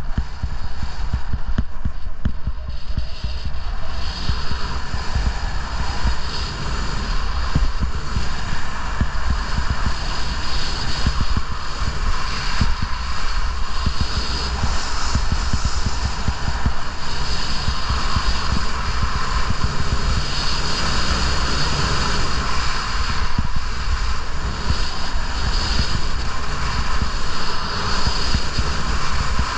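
Wind rushing over a ski-mounted or handheld camera's microphone at speed, a heavy low rumble, mixed with the hiss and scrape of skis carving on packed snow that swells and eases with the turns.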